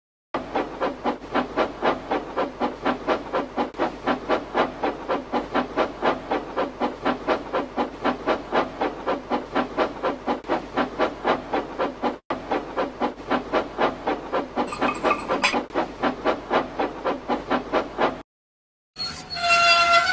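Steam locomotive chuffing, steady and even at about four chuffs a second, with a hiss. It breaks off for an instant near the middle and stops shortly before the end.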